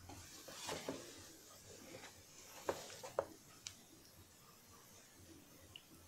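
Faint handling sounds: a few light knocks and clicks, the loudest about three seconds in, as a small paint jar and brush are moved over the painted fabric.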